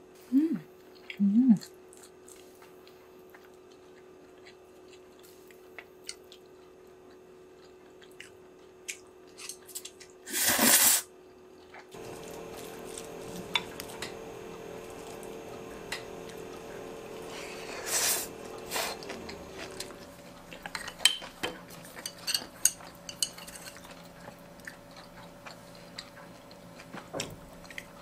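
Spoon clinking and scraping against ceramic bowls: scattered light taps, with a louder scrape about ten seconds in and another at about eighteen. Near the start come two short squeaks that slide down in pitch.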